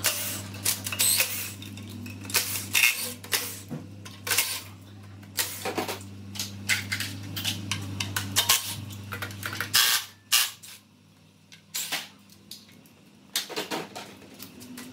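Irregular metallic clinks and clatter of tools, sockets and bolts as parts are unbolted from a Toyota Prius engine hanging on a shop crane, over a steady low hum that cuts off about ten seconds in.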